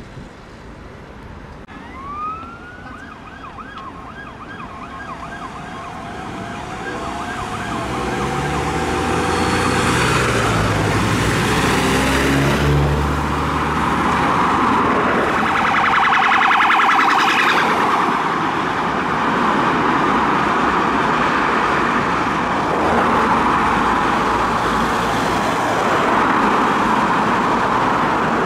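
Police car sirens sounding as cars on blue lights approach through traffic: a rising wail, then a fast yelp, growing louder over the first ten seconds. Passing vehicle engines and tyres rumble underneath.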